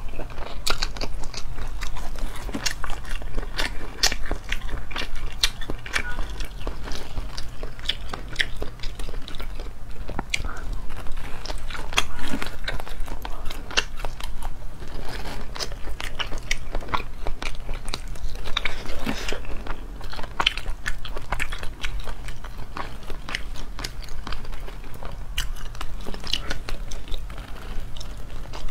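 Close-up chewing and biting of braised whole squid: a continuous run of many small sharp mouth clicks and bites, over a faint steady low hum.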